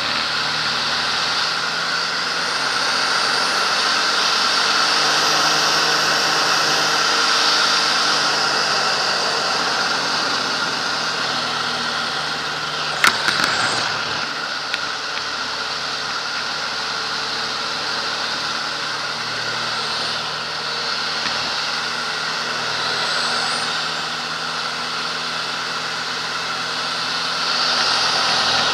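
Biplane's piston engine and propeller running under heavy wind rush during aerobatic flight, the engine note shifting slightly as it manoeuvres. A single sharp knock about halfway through.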